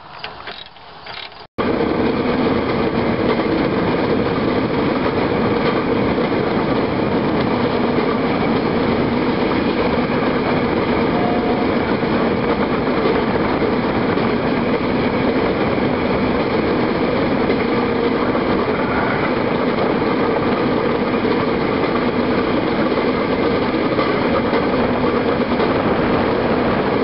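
Motorized rail cart running along the track: a steady engine note mixed with wheel-on-rail noise, starting abruptly about a second and a half in.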